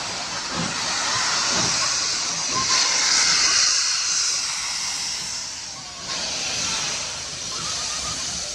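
R-class Hudson steam locomotive venting steam close by: a loud, steady hiss of escaping steam, strongest about three seconds in.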